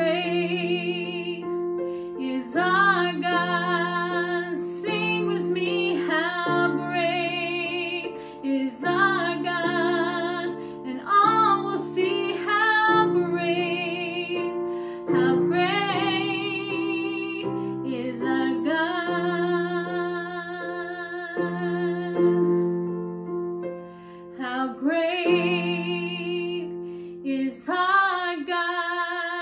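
A woman singing a worship song in phrases, her held notes wavering, while she accompanies herself on an electronic keyboard playing sustained chords that change every second or two.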